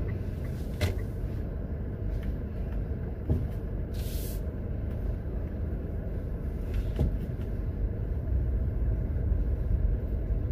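Car driving along a city street, heard from inside the cabin: a steady low engine and road rumble, with a few faint clicks and a short hiss about four seconds in.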